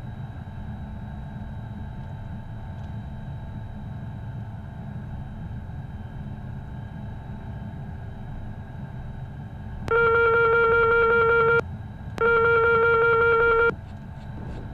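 Steady hum and whine of the Beechcraft Premier I's twin turbofans idling, heard from inside the cockpit. About ten seconds in, two loud, steady electronic tones, each about a second and a half long with a short gap between, sound from the cockpit's aural alert system.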